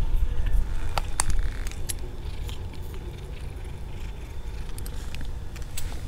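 Low wind rumble on the microphone, with a few sharp clicks and light rattles about a second in and again near the end.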